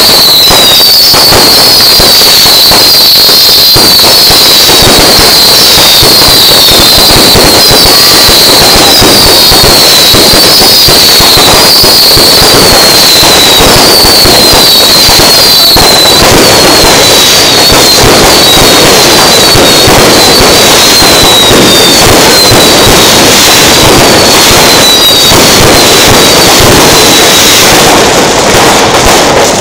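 Fireworks going off close by, a loud, dense continuous crackling of small bursts. Over it runs a string of short, high falling whistles about twice a second, which fade out near the end as the crackle thins.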